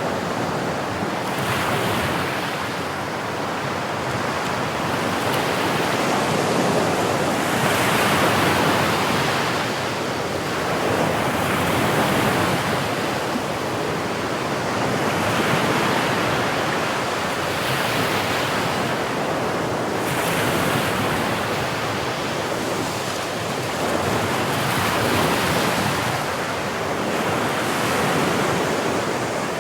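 Sea waves breaking and washing onto the shore in a continuous rushing surf that swells and eases every few seconds, with some wind on the microphone.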